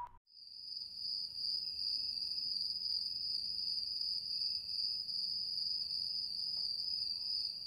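Crickets chirring in a steady, high-pitched trill, a night-time ambience; it fades in just after the start.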